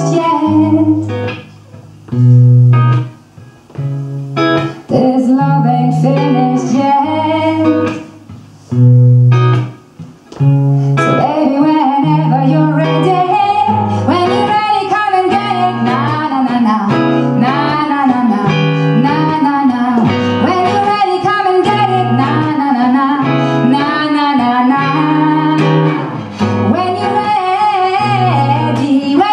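Live pop song by a singer and a single electric guitar. The guitar plays chords in short stop-start phrases with pauses between them; from about eleven seconds in, the voice sings continuously with vibrato over steady strummed guitar.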